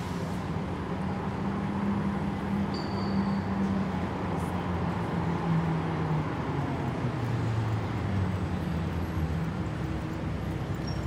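City traffic rumble at a road junction, with a vehicle engine's steady drone that slides lower in pitch about halfway through.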